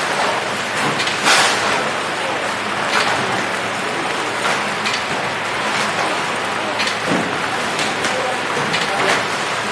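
Flow pack (horizontal wrapping) machine running, a steady mechanical whir and hiss with sharp clicks every second or two as trays of buns are pushed through.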